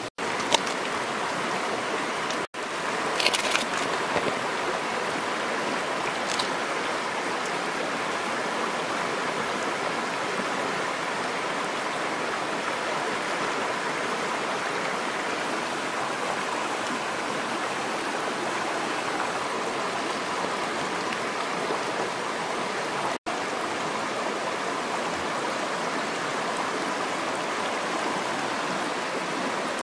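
Shallow stream rushing and splashing over rocks, a steady even wash of water. A few brief clicks about three to four seconds in and again around six seconds.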